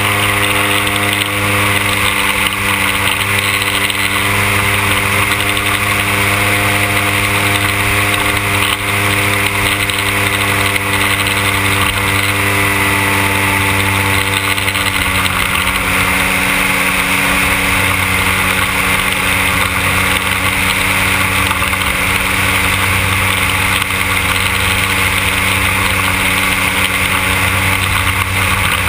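The 100cc petrol engine of a large-scale radio-controlled Cessna Skylane 182 model running steadily. Its note changes slightly about halfway through.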